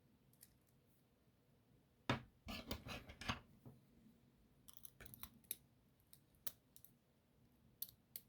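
A steel lock pick and tension tool scraping and clicking inside the cylinder of a Halfords bike lock as it is being picked: a cluster of scrapes and clicks about two seconds in, then scattered light clicks.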